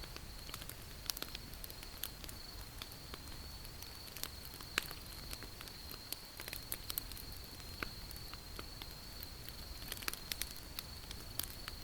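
Wood fire crackling: irregular sharp pops and snaps, several a second, over a low hiss, with a faint steady high-pitched tone underneath.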